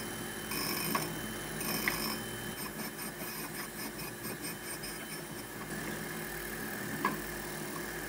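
Surface grinder running steadily: the electric motor driving the grinding wheel through a poly-V belt, a constant hum with a few faint ticks, as the wheel runs out of the cut on a soft-steel test piece.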